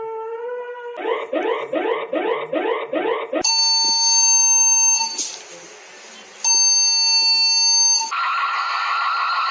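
Synthesized emergency alert alarm tones in sequence. A rising siren-like tone gives way to about six quick upward chirps, then a loud steady multi-tone beep that drops out briefly to a quieter hiss and comes back, and near the end a fast warbling tone.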